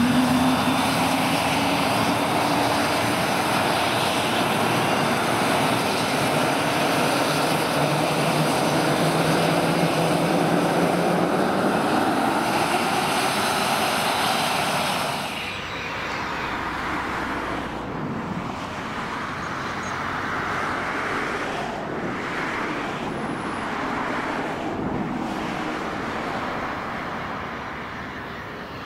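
Twin Williams FJ44-2C turbofans of a Cessna Citation CJ2 running, loud and steady with a hissing whine, heard from close behind the jet. About halfway through the sound turns quieter and duller, the engines now heard from farther off as the jet taxis.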